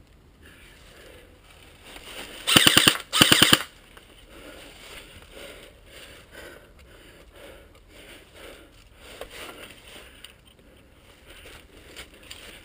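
Airsoft electric rifle firing two short full-auto bursts in quick succession, a rapid mechanical rattle of shots, about two and a half seconds in.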